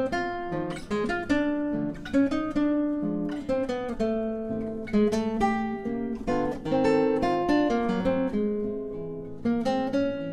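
Solo nylon-string classical guitar playing a waltz: plucked melody notes over chords and bass notes, each note ringing and dying away.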